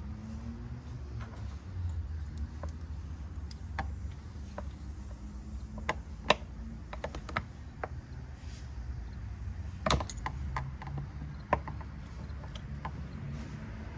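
Scattered clicks and taps of a flathead screwdriver prying plastic retaining clips on the stock air intake, with a few louder snaps about six, ten and eleven and a half seconds in. A low steady rumble sits underneath.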